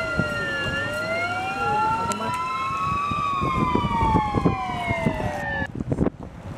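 Several emergency-vehicle sirens wailing at once, their pitches sliding slowly up and down past each other. They cut off abruptly near the end, leaving rough street noise.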